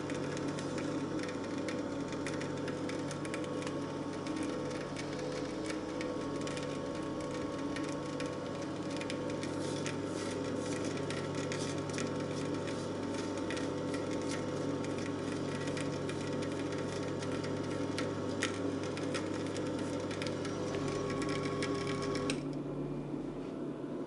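Compact electric screw oil press running, its motor humming steadily with a fine crackle of hemp seeds being crushed in the screw. It stops near the end.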